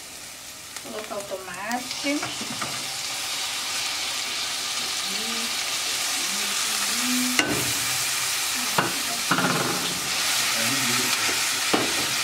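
Chopped onion and diced tomato frying in oil in an aluminium pan, the sizzle growing louder as the tomato goes in, with a few sharp knocks against the pan in the second half.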